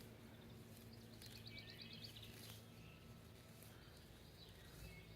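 Near silence with faint birdsong: a short rapid trill of high chirps about a second in, and a few scattered faint chirps, over a low steady hum.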